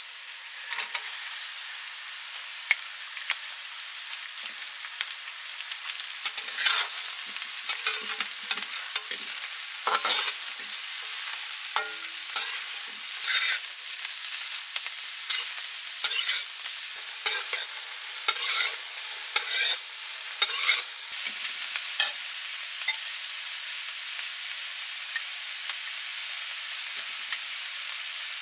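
Shredded cabbage, carrot and green pepper sizzling in hot oil in a metal wok, with a metal spatula scraping and tossing them against the pan in repeated scrapes and clinks through the middle stretch; near the end only the steady sizzle is left.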